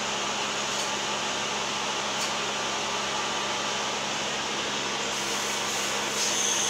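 Steady hiss of air with a faint low hum from a DIMET cold gas-dynamic spraying unit that has just been switched on, rising a little near the end.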